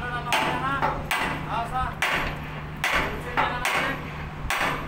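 A hammer striking the steel of a tower crane's mast frame in a steady series, roughly one blow a second, each blow ringing briefly.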